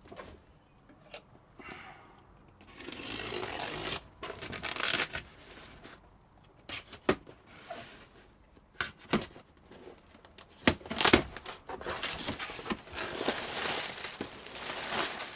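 Cardboard shipping box being opened by hand: packing tape tearing, and cardboard and packing material rustling in stretches of a second or more, with a few sharp knocks.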